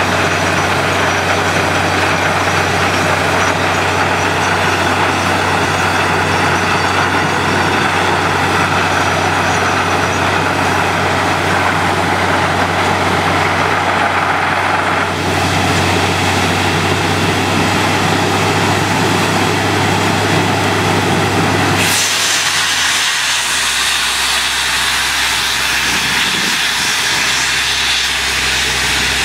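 Truck-mounted borewell drilling rig running steadily while drilling: a low engine drone under a loud, even hiss. About three-quarters of the way through, the drone drops in pitch and the hiss turns brighter.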